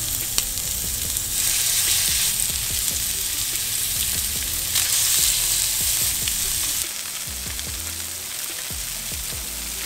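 Barracuda fillets searing in hot oil in a nonstick frying pan on high heat: a steady sizzle that swells twice as more pieces are laid in, then settles lower about seven seconds in.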